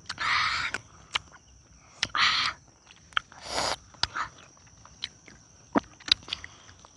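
People eating a spicy sour salad of wild passion fruit: scattered sharp chewing clicks and smacks, with three short hissing sounds about a second and a half apart.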